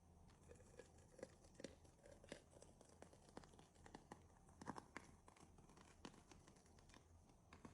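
Near silence broken by faint, irregular little clicks and taps.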